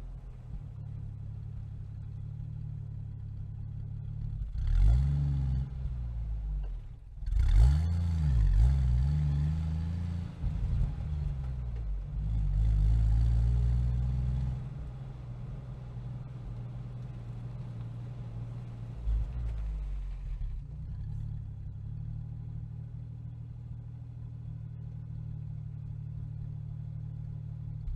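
Jeep Wrangler exhaust heard right at the tailpipe. The engine idles steadily, revs up and down in pitch about five seconds in and again from about seven to ten seconds, runs louder under load until about fourteen seconds, then settles back to a steady idle.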